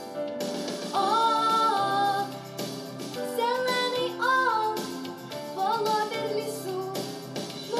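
A young girl singing a song with musical accompaniment, her voice holding and bending sustained notes.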